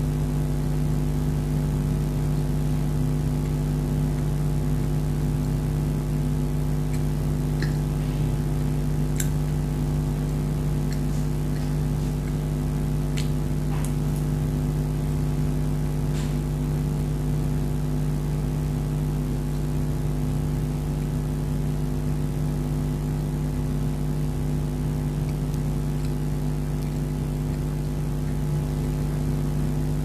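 A steady electrical hum made of several fixed tones, unchanging throughout, with a few faint short clicks now and then.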